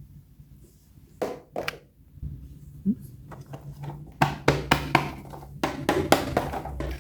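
Hands handling plastic toys: sharp taps and clicks, two about a second in and then a quick run of them in the last three seconds.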